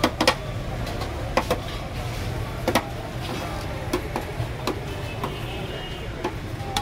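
A metal spatula clinking and knocking against plates and the rim of a large steel cooking pot as rice is dished out: about a dozen sharp, irregular knocks over a steady low street hum.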